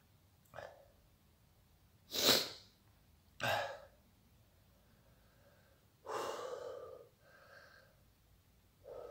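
A man's hard, noisy breaths through the open mouth: about five sharp hissing breaths a second or two apart, the loudest about two seconds in and a longer one about six seconds in. This is the kind of breathing that comes from the mouth burning after eating a super-hot chili pepper.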